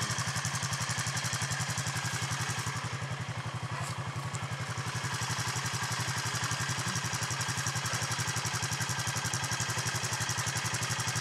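Four-wheeler (ATV) engine idling steadily, an even rapid pulsing beat.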